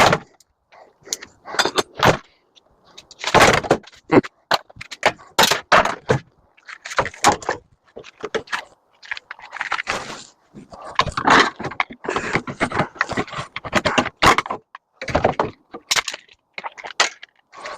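Metal parts of a microwave oven being taken apart by hand: irregular clanks, knocks, clicks and short scraping rattles of sheet metal and components.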